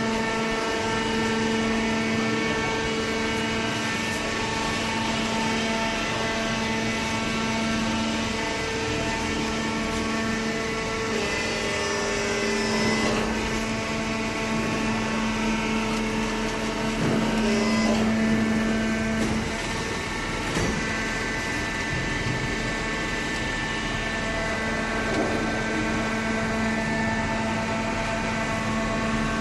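Fully automatic vertical cardboard baler running: a steady machine hum made of several tones. The tones shift a little twice partway through.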